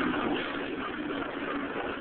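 Dodge SRT-4's turbocharged four-cylinder engine and exhaust running steadily.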